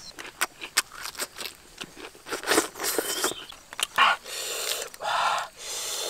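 Crisp lettuce leaves crackling and rustling close to the microphone as they are folded around oyster meat by hand, with sharp clicks two or three times a second. The rustles come in four short spells from about two seconds in.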